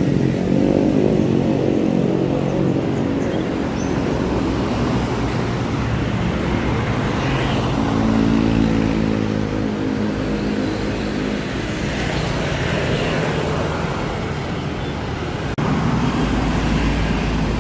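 Intercity bus's diesel engine running as the bus drives, its pitch rising and falling with speed. The sound cuts abruptly to a louder stretch about fifteen seconds in.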